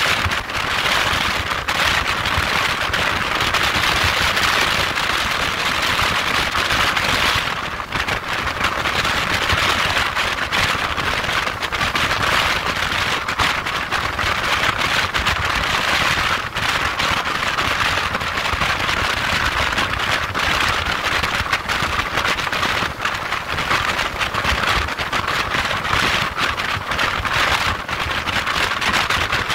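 Wind rushing over the camera microphone of a motorcycle at motorway speed: a loud, steady, crackling hiss that buries the engine and tyre sound.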